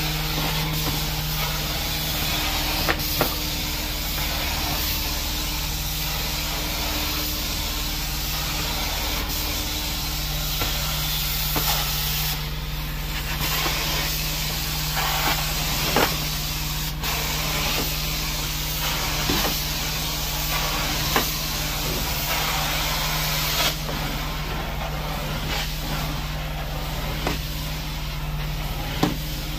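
Carpet steam-cleaning (hot water extraction) machine running: a steady motor hum under the hiss of spray and suction at the cleaning wand, with scattered sharp clicks. The hiss eases off twice, briefly.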